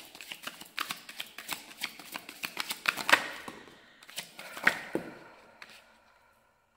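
Tarot cards being shuffled by hand: a fast run of card flicks as cards slide off the pack, with louder slaps a little after three seconds in and again near five seconds in, then thinning out and fading away near the end.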